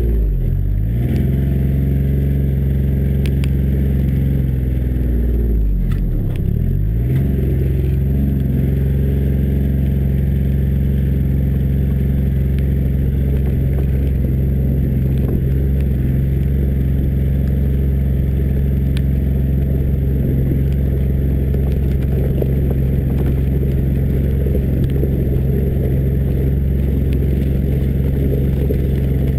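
John Deere Gator 855D's three-cylinder diesel engine running as the utility vehicle drives off-road, heard from beside the front-left wheel, with tyres crunching over dirt and gravel. Engine speed dips and climbs back near the start and again about six seconds in, then holds steady.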